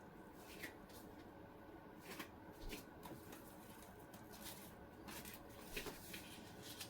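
Faint scattered soft taps and rustles of hands handling food and utensils at a kitchen counter, over a low steady room hum.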